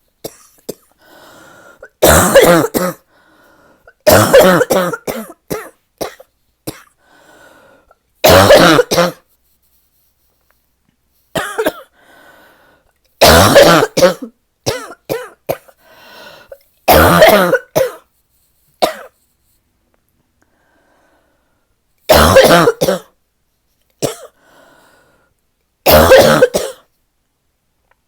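A person's deep, barking cough in repeated fits, each a cluster of harsh hacks, with faint breaths between. It is a lingering cough that is not getting better, with aching lungs.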